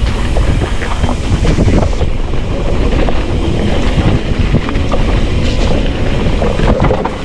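Wind buffeting the microphone of a chest-mounted action camera on a mountain bike riding down a trail, with the tyres running over dirt and rock and the bike rattling and knocking with the bumps.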